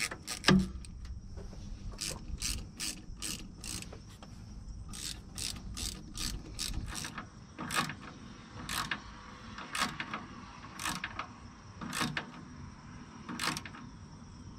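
Hand ratchet clicking as a hose clamp on a truck's intercooler boot is tightened down: runs of sharp clicks about three a second, slowing to about one click a second near the end.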